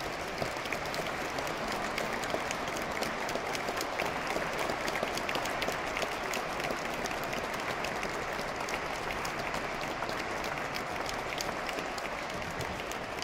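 Audience applauding steadily in a large church, many hands clapping together.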